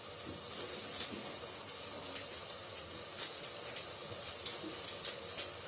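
Chicken and onion-tomato masala sizzling in oil in an open aluminium pressure cooker: a steady hiss with a few small pops.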